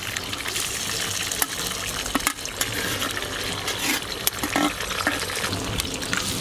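Eggs frying in hot oil in a large metal wok, a steady sizzle with scattered pops, and several sharp clicks as eggshells are cracked against a spoon over the pan.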